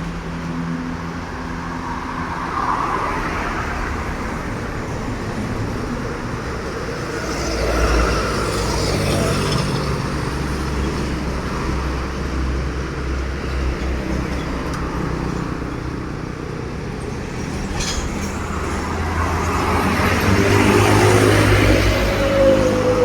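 Heavy road traffic: truck diesel engines and tyres rumbling past, loudest as one vehicle goes by about eight seconds in. Near the end a truck's horn starts to sound.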